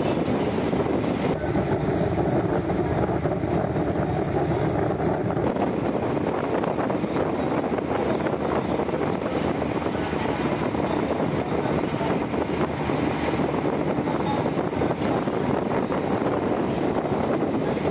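Steady engine drone of a sightseeing boat under way, mixed with the rush of wind and water on deck.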